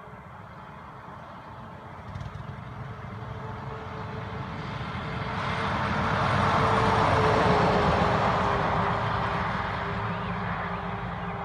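An International 9900 logging truck approaching and driving past, its engine and tyre noise swelling to a peak about two-thirds of the way in and then fading, with a steady engine tone that drops slightly in pitch as it passes.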